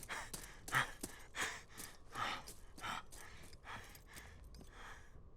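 A man breathing hard in quick, ragged gasps, about two or three breaths a second, fading over the last couple of seconds.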